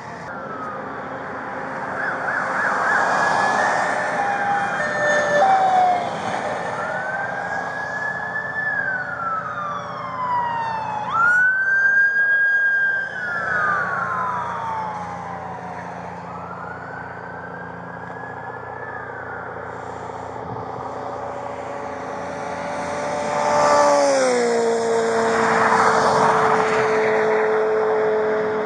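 Police car sirens wailing in slow rising and falling sweeps, over the rush of vehicles going by. Near the end a loud vehicle passes and a steady tone slides down in pitch.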